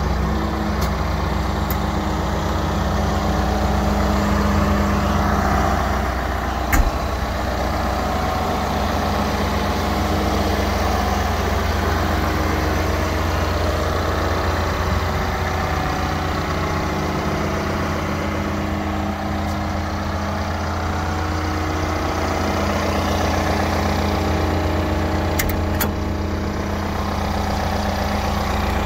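Manitou MT733 telehandler's diesel engine running steadily at low revs. A single sharp click about seven seconds in, and two more clicks near the end.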